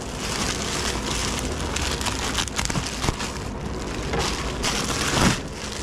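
Bubble wrap and plastic wrapping crinkling and crackling as they are pulled and handled, with a sharper crackle about five seconds in.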